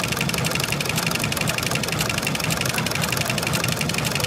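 JUKI PLC-2760L post-bed industrial sewing machine running at a steady speed, stitching through leather: a rapid, even clatter of needle strokes.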